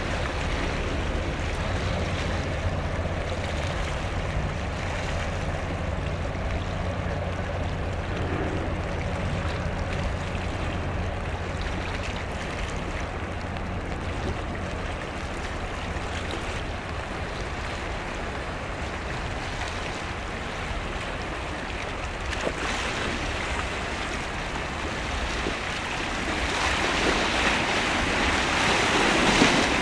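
A passing ship's engine drones low and steady, fading out about halfway through, under a constant rush of wind and water. The rush swells louder near the end.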